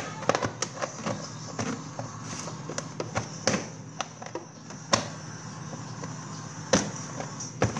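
Plastic food containers being slid and set down on a refrigerator shelf: scattered light clicks and knocks of plastic on plastic, the loudest about five seconds in and again near seven seconds, over a steady hum.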